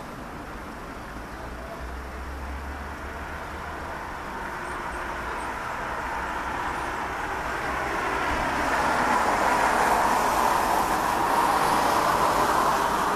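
Distant, steady rushing rumble of an Airbus A320 airliner's jet engines at cruise altitude, heard from the ground. It grows gradually louder and levels off from about nine seconds in.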